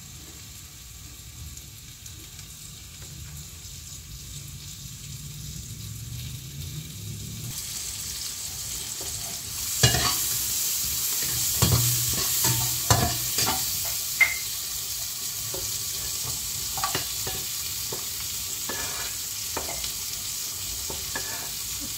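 Hot cooking oil in a frying pan hissing faintly, then about ten seconds in the garlic-and-onion soup seasoning goes in and sizzles loudly and steadily. A spatula clinks and scrapes against the pan as it is stirred.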